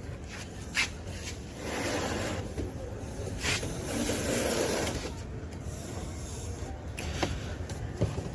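Plastic casing of a Dawlance washing machine being handled and shifted on a tiled floor: rubbing and scraping with a few sharp knocks.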